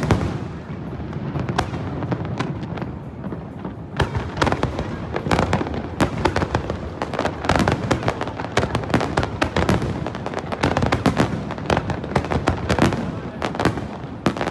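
Aerial fireworks bursting in rapid, overlapping bangs and crackles, with a steady rumble between the reports. A sharp bang opens it, and the bursts come thicker from about four seconds in.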